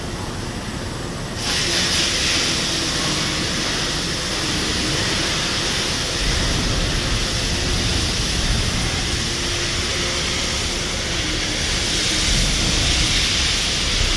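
Automatic arc welding on a tank seam: a steady, loud frying hiss that starts abruptly about a second and a half in, over a low rumble of shop machinery.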